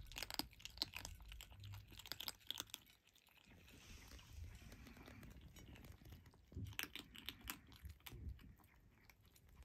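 Several Turkish Angora kittens crunching dry kibble: a quick scatter of small, crisp crunches that thins out about three seconds in and picks up again near the end.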